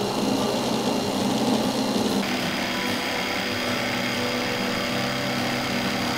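Electric jigsaw running steadily as it cuts a curve through a plywood board. Its whine changes abruptly about two seconds in.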